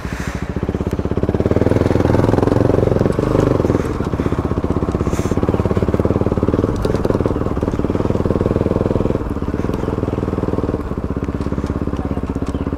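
Motorcycle engine running while riding, a steady fast-pulsing exhaust note. It eases briefly about four seconds in and again near eleven seconds.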